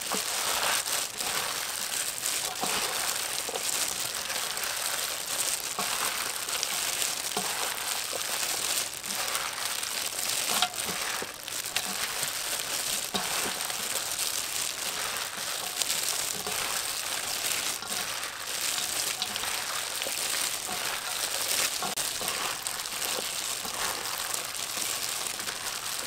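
Clear plastic food-prep gloves crinkling as hands toss shredded cabbage, carrot and herbs in a stainless steel bowl: a continuous rustle dotted with small ticks.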